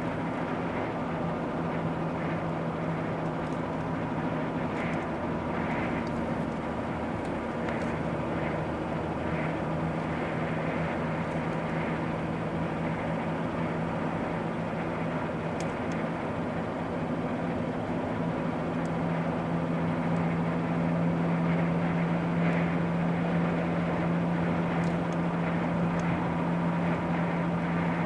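Steady drone of a moving car's engine and tyres on the road, with a constant low hum, growing slightly louder about two-thirds of the way through.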